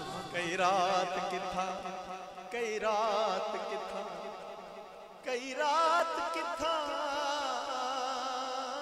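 A man's voice singing three long, wordless notes with a wavering vibrato, a melodic drawn-out vocalise. The phrases begin just after the start, about two and a half seconds in and about five seconds in, and each one fades away before the next.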